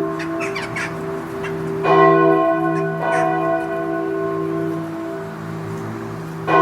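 A single church bell tolling slowly. It is struck about two seconds in and again at the very end, and each stroke rings on with a long, steady hum of overtones that slowly fades between strikes.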